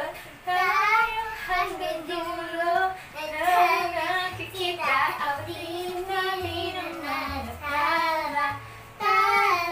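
A young girl and a woman singing a song together, the girl's voice leading, with low bass notes joining in from about four seconds in.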